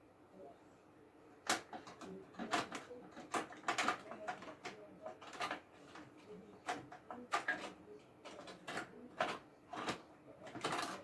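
Irregular clicks and knocks of a graphics card being handled and pushed into a desktop tower's expansion slot.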